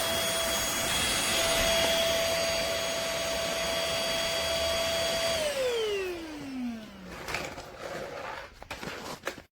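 Trucozie cordless stick vacuum running with a steady whine. About five seconds in it is switched off and the motor winds down, its pitch falling over a second or two. A few faint knocks of handling follow.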